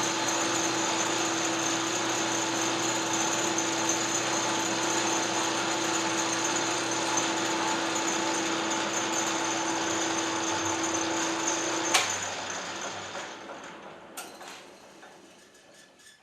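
Machine-shop spindle motor running steadily with a whine, switched off with a click about twelve seconds in, then winding down to a stop.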